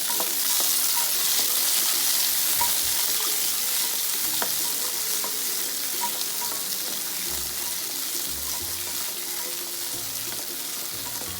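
Shallots and tomatoes sautéing in sesame oil in a pan: a steady sizzle, with a few scrapes and taps of stirring.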